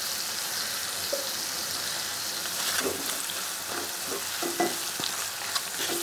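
Onion and capsicum sizzling in oil in a pan on low heat, with a wooden spatula scraping and knocking against the pan as they are stirred, the knocks coming from about halfway through.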